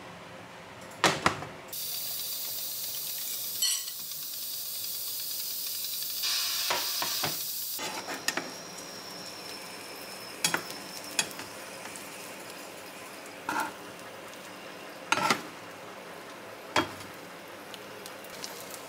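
A non-stick frying pan set down on an induction hob with a knock, then a loud sizzling hiss of egg frying in oil for about six seconds that cuts off abruptly. After that, a metal spatula taps and scrapes against the pan several times as a Korean rolled omelet is rolled up.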